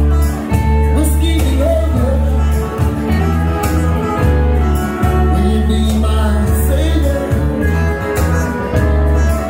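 Live country band playing loudly: fiddle and acoustic and electric guitars over a steady bass line.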